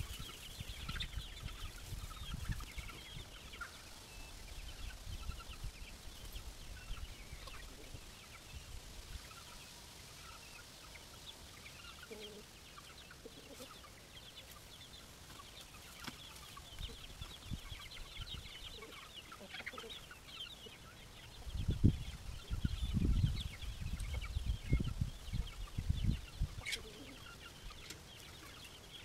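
A flock of chickens clucking, many short calls overlapping, impatient for feed. Several loud low rumbling bursts come about three quarters of the way through, louder than the clucking.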